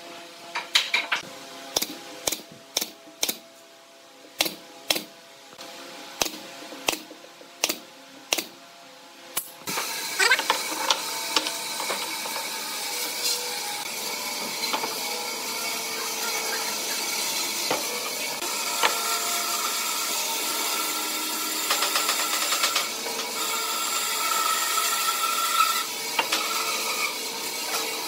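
Sharp knocks on wood, roughly one a second, for about the first ten seconds. After that comes a steadier din with scattered clatter, as pine boards and metal pipe clamps are handled on the workbench.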